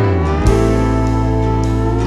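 Calm instrumental background music led by guitar. A low note slides down in the first half second, then a chord rings on steadily.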